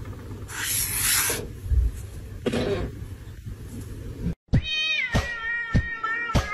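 A domestic cat meows briefly over scratchy squeaks of a marker drawn across paper. About four and a half seconds in, the sound cuts to music with a steady beat.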